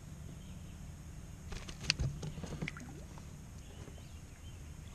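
A short burst of splashing and sharp knocks about two seconds in as a pickerel is lowered in a lip grip into the water beside a kayak for release, over a steady low rumble.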